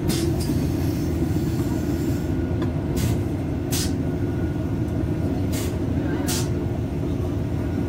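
Cabin noise of a DB class 612 diesel multiple unit running along the line: a steady low rumble of engine and wheels on rail. Short sharp clicks come in pairs about two-thirds of a second apart, a few seconds apart from one another.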